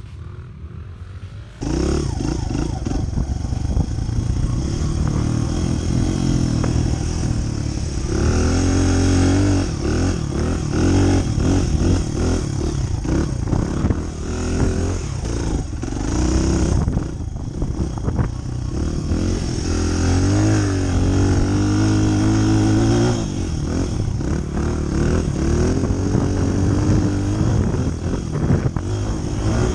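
Honda CRF100F's small air-cooled four-stroke single-cylinder engine revving up and down as the dirt bike is ridden over sand, picked up close from the bike's onboard camera. The sound jumps louder about two seconds in.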